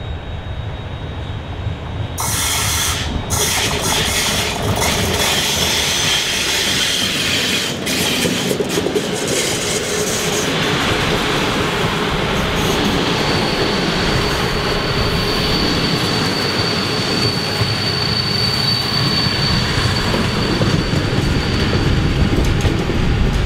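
Passenger train of old green coaches rolling past close by: wheels rumbling and clattering over the rails, and a thin steady high wheel squeal through the middle stretch. A quieter approaching electric locomotive comes before the sound jumps up about two seconds in.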